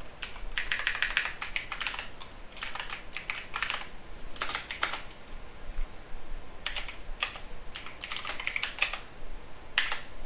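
Typing on a computer keyboard: quick runs of keystroke clicks in bursts, with short pauses between them.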